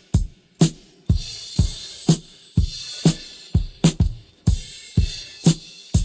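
Rock drum kit on its own, separated from the full mix: kick and snare hits at a steady beat of about two a second, with cymbals washing in and out between them.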